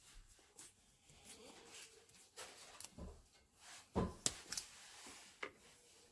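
Scattered light clicks and knocks in a small room, the loudest a sharper knock about four seconds in.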